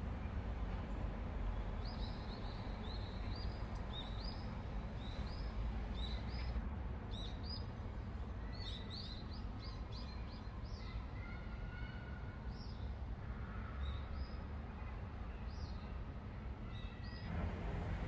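A small bird chirping over and over in short, high, hooked notes, about two a second and quicker in the middle, over a low steady background rumble.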